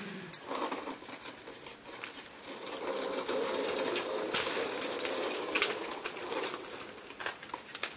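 Soil rustling and scraping in a plastic five-gallon bucket as it is dug out by hand to reach the potatoes, with scattered small knocks; the rustling grows heavier through the middle.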